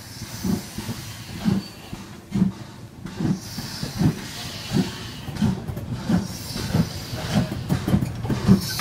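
Ivatt Class 2 2-6-2T steam tank locomotive working slowly with a train of goods wagons: a regular beat of exhaust chuffs that gradually quickens as it gathers speed, over a steady hiss of steam.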